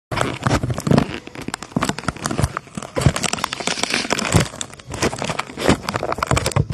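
Plastic wrapping being crinkled and handled up close: dense, irregular crackling with many sharp clicks that stops abruptly near the end.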